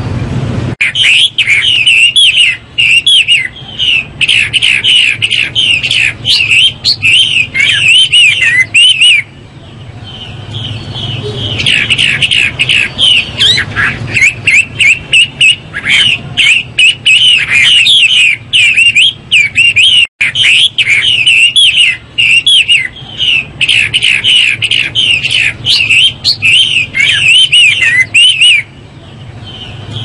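Chinese hwamei (Garrulax canorus) singing a loud, rapid, richly varied song of whistled phrases, with a short break about nine seconds in and another near the end.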